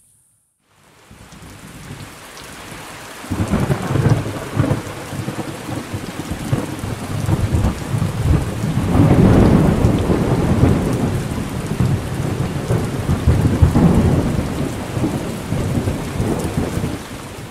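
Thunderstorm: steady heavy rain, fading in about a second in, with rolling thunder that swells up several times and is loudest around the middle.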